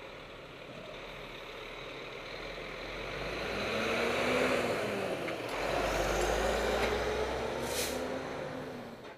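Box truck's diesel engine growing louder as the truck pulls past close by, its pitch rising and falling twice, with a short air-brake hiss near the end.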